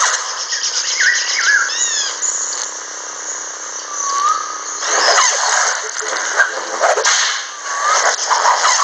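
Lightsaber sound-font audio from a custom saber: a steady blade hum under a jungle background of chirping bird calls. Louder swooshing passes come about five seconds in and again near the end.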